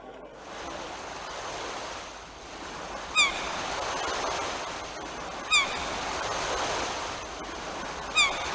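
Steady rush of sea surf: the sound of the sea heard in a seashell. A gull gives a short falling cry three times, a little under three seconds apart.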